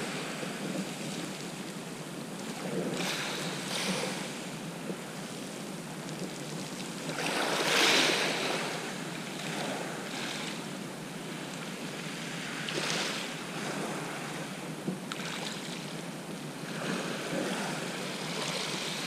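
Sea waves breaking and washing up the shore in a series of surges, the biggest about eight seconds in.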